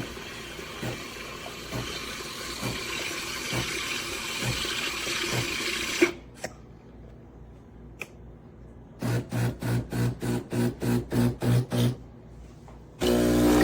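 AIRMSEN 20-bar espresso machine running: a rushing water-and-steam noise with a faint thump about once a second, then a quieter stretch, then its pump pulsing rapidly, about four times a second, for three seconds, and near the end a loud steady pump hum sets in.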